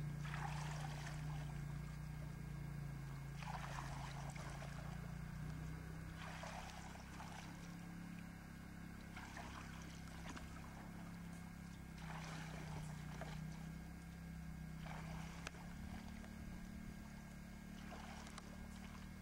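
Paddle strokes in water, a swish and splash about every three seconds, seven in all, over a steady low hum.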